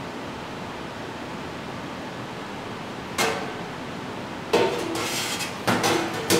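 Stainless steel hotel pans clanking and ringing as a perforated pan is handled and set down into a larger pan: one sharp clank about three seconds in, then a run of clanks and a rattle over the last two seconds. A steady faint hiss runs beneath.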